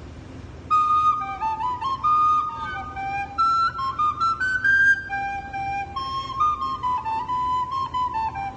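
A recorder played solo: a simple tune of separate held notes that starts about a second in, over a low steady hum.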